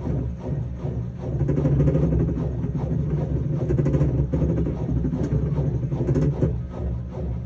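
Samsung washing machine making a noise as it weighs the load, with the drum turning during the load-sensing stage. It is a steady low rumble with uneven pulsing.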